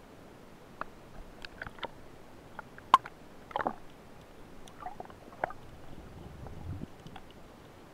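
Scattered muffled clicks and knocks of spearfishing gear heard underwater through a camera housing, with one sharp loud click about three seconds in and a brief low rumble near the end.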